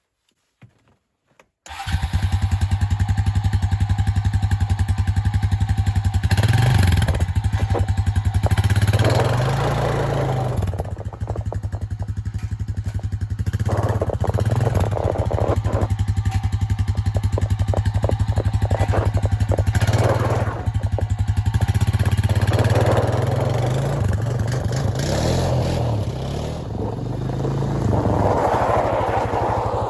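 Honda Rancher 350 ATV's single-cylinder four-stroke engine running as it is driven on ice on freshly studded rear tyres. It comes in suddenly about two seconds in, and its revs rise and fall repeatedly as the throttle is worked.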